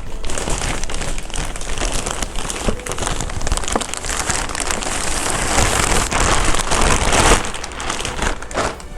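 Plastic packaging rustling and crinkling continuously as heavy gaming-chair parts are handled and unwrapped from their box, with many small crackles, loudest just past the middle.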